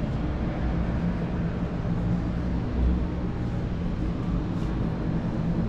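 Steady low background rumble of a large indoor hall, with a brief low thump about three seconds in.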